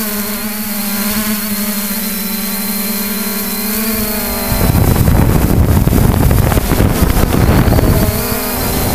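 Multirotor drone's propellers humming steadily. About halfway through, a loud rush of wind noise buffets the microphone for some three seconds, and the hum comes back near the end.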